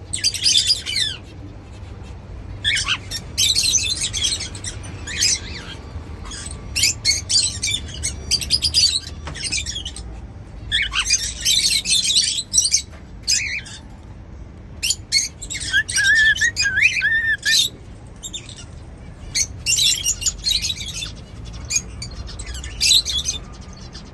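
Cockatiels chirping and calling in short, repeated bursts of high-pitched notes, with a run of lower whistled notes about two-thirds of the way through.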